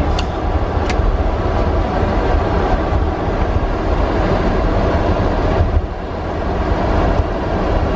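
Steady flight-deck noise of an Airbus A300-600 taxiing: a constant low rumble with a hiss over it, from the engines at taxi power and the cockpit air conditioning. Two short sharp clicks come in the first second, and the noise drops briefly about six seconds in.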